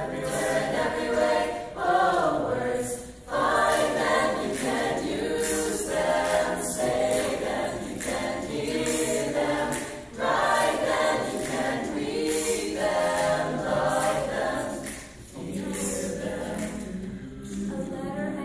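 Mixed choir of men's and women's voices singing a cappella in phrases, with short breaks about three seconds in and again about fifteen seconds in.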